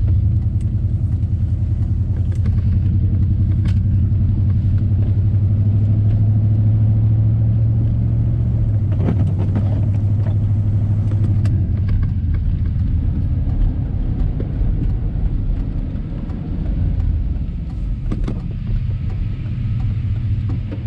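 Old Chevy pickup running in four-wheel drive on a snowy road, a steady low rumble of engine and tyres heard from inside the cab, with a few faint knocks.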